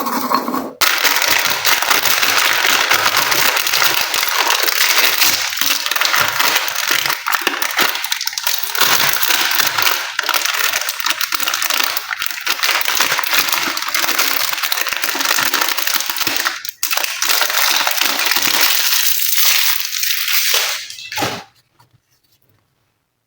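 Slime being squished and kneaded by hand close to the microphone: a dense run of sticky crackles and small pops that stops suddenly near the end.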